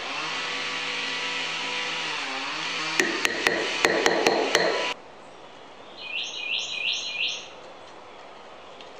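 Rubber mallet tapping wooden dowels into the holes of a segmented wooden ring: about seven quick strikes around the middle, over a steady noisy hum that cuts off suddenly. Then a bird chirps four times.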